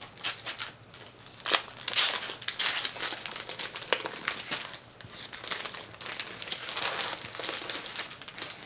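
Plastic pack crinkling and rustling in irregular bursts as it is opened by hand and a small cardstock poster is slid out.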